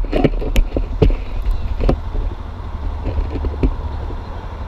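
Knocks and rubbing from an action camera being handled and strapped on, loudest in the first two seconds, over the low steady rumble of a motorcycle idling.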